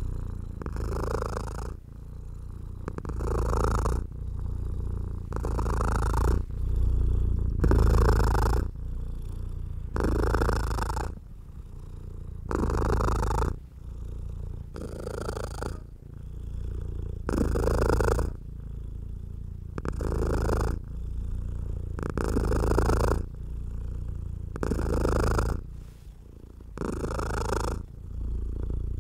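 A domestic cat purring steadily and close up. The purr rises and falls in a slow, even cycle about every two and a half seconds, louder on one breath and softer on the next.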